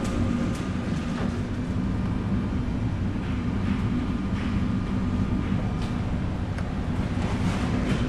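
Steady low drone of a ship's engines and machinery in heavy seas, with a hiss of wind and sea over it and a few faint ticks.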